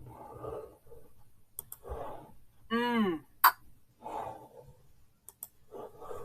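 Short nasal 'nk' honks made by voice, the sound of a skunk with a cold used for the /nk/ spelling sound, about four in all. The one near the middle is a longer honk that falls in pitch and is followed by a sharp click.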